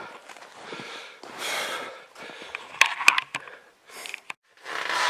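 A person breathing hard, with strong exhales about a second and a half in and again near the end, and a quick cluster of sharp clicks about three seconds in.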